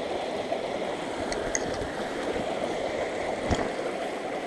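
Small mountain stream running over rocks, a steady rush of water, with one short knock about three and a half seconds in.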